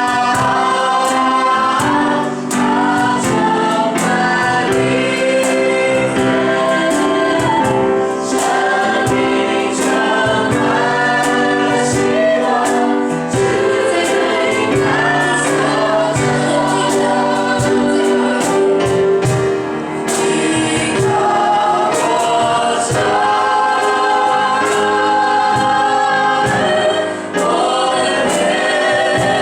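A choir singing a Christian worship song in several parts over instrumental backing with percussion.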